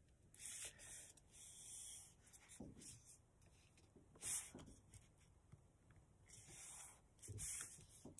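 Faint rustling and rubbing of a sheet of paper being folded and its creases pressed flat by hand, in a series of short soft strokes, the loudest about four seconds in.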